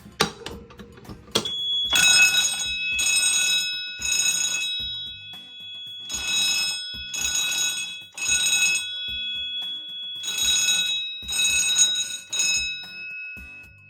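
Two sharp clicks as a fire alarm pull station is operated, then fire alarm notification appliances sound in the temporal-3 pattern: three short blasts, a pause, then three more, with a steady high tone from the panel underneath.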